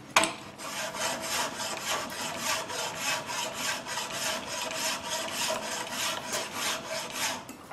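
Flat steel hand file stroking across a walnut knife-handle block held in a bench vise, in quick repeated strokes of about three a second, smoothing out the rasp marks. A sharp knock sounds just at the start.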